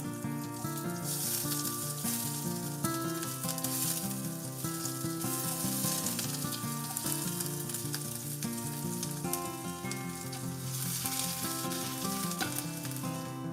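Food sizzling in a hot pan, the hiss swelling and easing several times, over background music.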